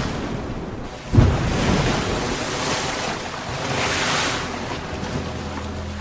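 Sea water churning and splashing at the surface as killer whales attack a Steller sea lion, with a sudden heavy low splash about a second in and another surge of rushing water a few seconds later.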